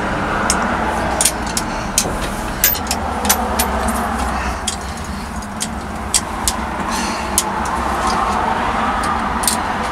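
Steady road-traffic noise from a street, with about fifteen sharp clicks and taps scattered irregularly throughout as small objects are handled close by.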